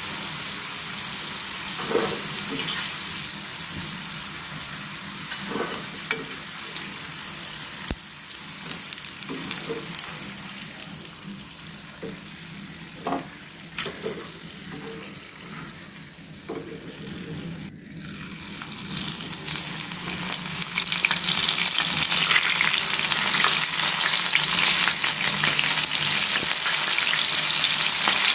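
Battered sweet corn kernels deep-frying in hot oil, a steady sizzle with a few short knocks of a slotted spoon against the pan in the first half. The sizzle thins out as the fried batch is lifted out, then grows loud and dense about two-thirds of the way in as a fresh batch goes into the oil.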